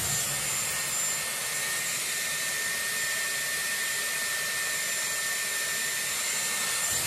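Dyson Airwrap running with a 30 mm curling barrel, hair wrapped round it: a steady rush of air with a thin, high motor whine.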